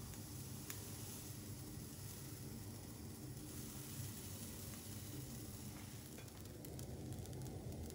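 Pancake batter sizzling faintly in a hot frying pan, over a steady low hum. A few light clicks come near the end.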